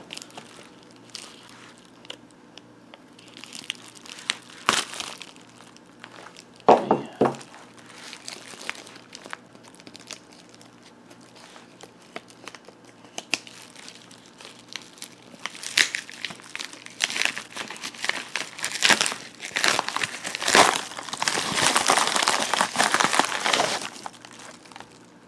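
Packaging crinkling and tearing as a parcel is unwrapped by hand, in irregular rustles with a couple of sharper knocks, growing dense and loudest in the last third.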